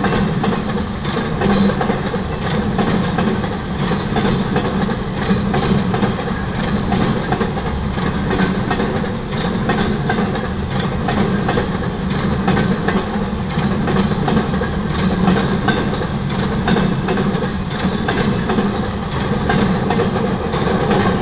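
Freight cars, mostly empty flatcars, of a manifest train rolling steadily past: a continuous rumble of steel wheels on rail with repeated wheel clicks.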